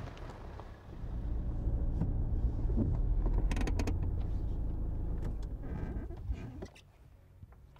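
Steady low rumble of a vehicle's engine and road noise heard from inside the cabin, with a few clicks along the way; the rumble cuts off near the end.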